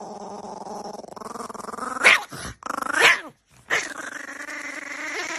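A dog growling in a long, rough, steady rumble, broken about two seconds in by three short, loud, sharp barks.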